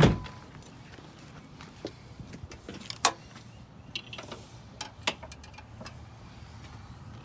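A single loud thump, then scattered clicks and taps of hands working in a car's cabin, over the faint steady hum of the idling engine.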